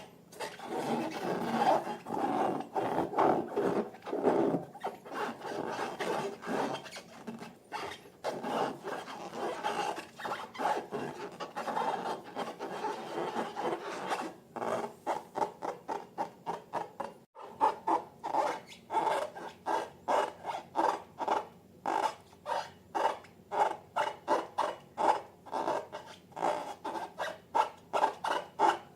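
Slime being mixed, with repeated rubbing and scraping strokes. Dense at first, then from about halfway the strokes become distinct and even, about two a second.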